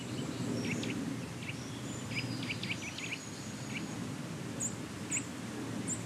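Eurasian nuthatches giving a series of short, sharp alarm calls, irregularly spaced and bunching up around the middle, at a woodpecker near their nest hole. Underneath is a steady low background noise.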